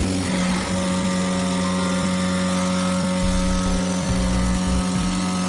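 CNC foam cutting machine with a pneumatic oscillating knife running, a steady hum with several held tones.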